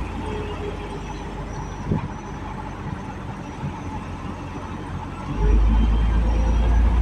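Logging truck running, a steady low engine and road rumble that grows much deeper and louder about five seconds in.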